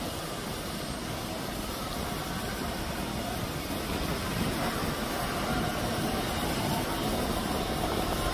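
Steady rumble of a running vehicle: an even noisy hum with no distinct events, growing slightly louder toward the end.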